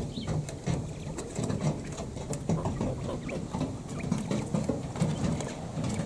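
Outdoor ambience: an uneven low rumble of wind buffeting the microphone, with many small scattered ticks and rustles from quail moving about and pecking in the grass.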